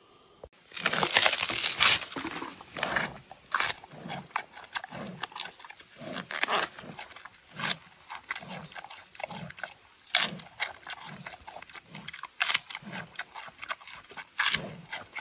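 Giant panda eating a fresh bamboo shoot: crisp crunching bites and splintering of the fibrous shoot over a regular chewing rhythm of about one chew a second. The crunching is loudest just after it starts, about a second in.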